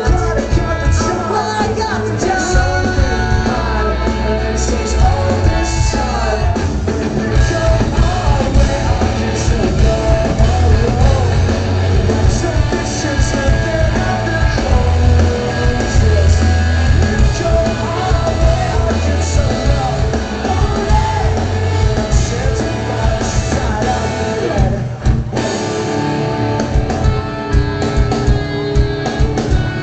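Rock band playing live: electric guitars, drums and a singing voice, heard from within the audience.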